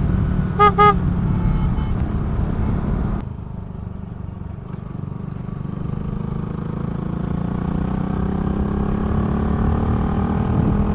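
Honda Grom's small single-cylinder engine running at road speed under wind noise. About half a second in, a horn gives two quick beeps. Around three seconds in the engine note falls away as the throttle closes, then builds again with a slowly rising pitch.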